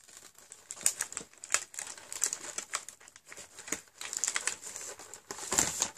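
Cardboard toiletry advent calendar and the plastic wrapping of a small item being handled: irregular crinkling and clicking, with one heavier knock near the end.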